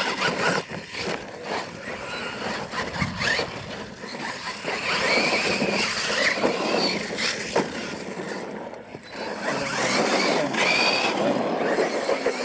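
Losi LMT radio-controlled monster trucks racing on a dirt track: their brushless electric motors whine, rising and falling in pitch as the throttle is worked, with scattered knocks from the trucks landing and bouncing.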